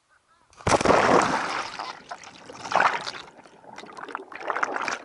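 A person plunging feet-first into the sea, heard by a camera that goes under with them: a sudden loud splash of water about a second in, then rushing and bubbling water underwater, swelling again about three seconds in.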